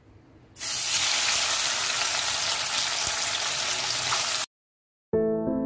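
Prawns dropped into hot mustard oil in a kadai, frying with a loud, steady sizzle that starts suddenly about half a second in and cuts off abruptly near the end. Piano music comes in just after.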